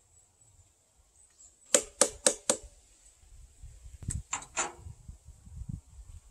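Claw hammer driving a nail into a wooden post: four quick strikes, then after a pause three more.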